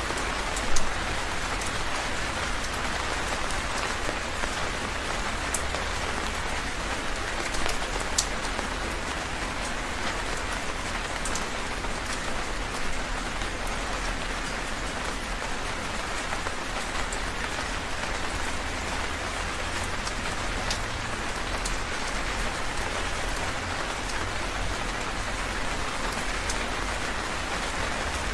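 Heavy rain falling steadily, a dense even hiss with scattered sharper drop ticks, a few louder ones about a second in and around eight seconds, over a low steady rumble.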